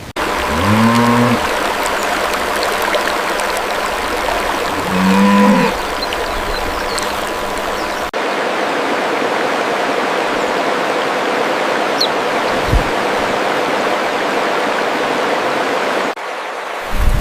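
A cow mooing twice, about a second in and again around five seconds, over a steady rush of running water.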